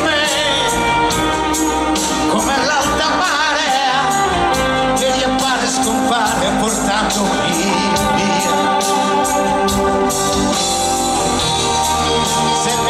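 Live band music with a steady beat and a male lead vocal, heard through the crowd at an open-air concert.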